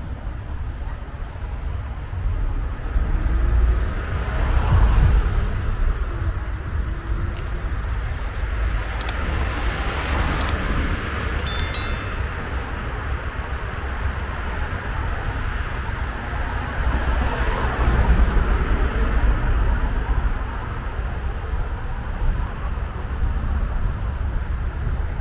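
Street traffic: cars pass by, one about five seconds in and another about eighteen seconds in, over a steady low rumble. A few short metallic clinks ring out near the middle.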